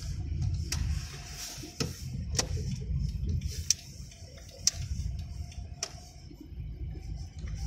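Car engine and road noise heard from inside the cabin, a steady low rumble, with about six sharp clicks or ticks at irregular intervals.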